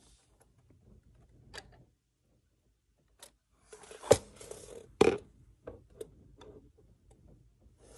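Handling sounds from an art-supply presentation box with metal clasps and a foam-lined tray as it is opened and turned. Sharp clicks and knocks come about four seconds in and again a second later, with a brief scrape around the first, and a few lighter ticks follow.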